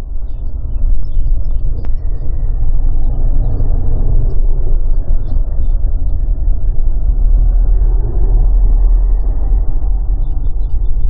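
A car driving, with a steady low rumble from the engine and road.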